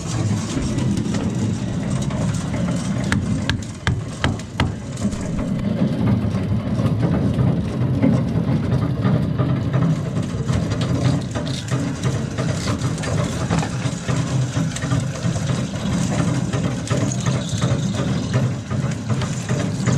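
Boat's Detroit Diesel Series 60 inline-six diesel engine running steadily as a low drone, with a few sharp knocks about three to five seconds in.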